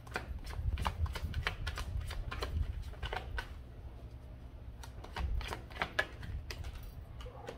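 A tarot deck being shuffled by hand: quick runs of card clicks and flutters, dense for the first three seconds or so, pausing briefly, then picking up again more sparsely.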